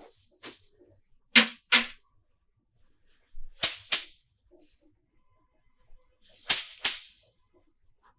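Broom sweeping in short swishes, two quick strokes at a time, with a pause of a second or two between pairs; four pairs in all, the first one softer.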